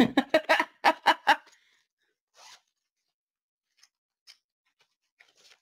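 Packaging being handled on a table: a quick run of about eight sharp clicks and knocks in the first second and a half, then a few faint rustles.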